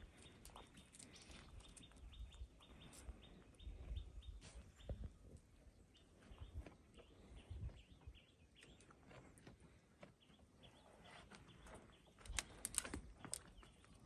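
Near silence: faint outdoor ambience with scattered bird chirps and light clicks and scuffs, and a short cluster of sharper clicks near the end.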